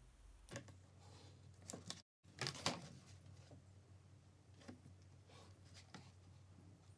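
Faint handling sounds of a pencil drawing along a clear plastic curve ruler on a paper pattern: a few soft scrapes and taps over a low steady room hum.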